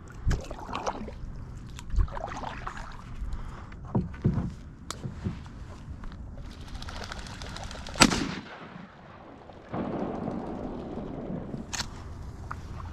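Canoe being paddled: paddle strokes in the water with scattered knocks of the paddle against the hull. About eight seconds in comes one sharp crack, the loudest sound here, which dies away within half a second.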